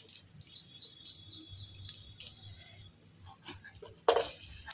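Hot oil in an iron kadai sizzling faintly with fenugreek and mustard seeds for a tempering, with a few scattered small pops and one louder burst about four seconds in.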